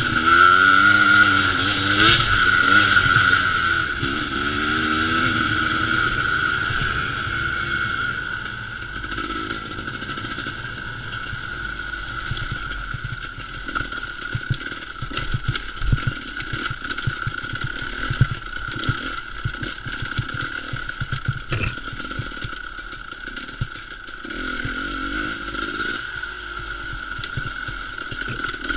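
KTM enduro motorcycle engine revving up and down for the first several seconds, then running at lower revs while rocks and the bike's chassis knock and clatter repeatedly over a loose rocky trail.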